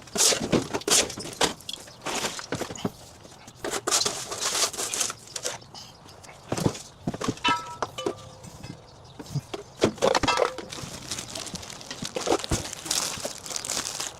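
Household items being handled and set down: irregular knocks, clatters and rustling, with footsteps, as junk is packed into containers.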